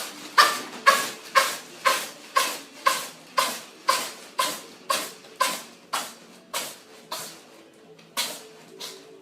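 A cat sneezing in a rapid fit, about two sneezes a second, the sneezes growing weaker as the fit goes on, over faint background music.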